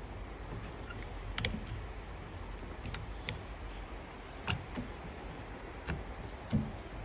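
Scattered small clicks and knocks of circular saw parts being handled and pressed into place during reassembly, about half a dozen at irregular intervals over a low steady background rumble.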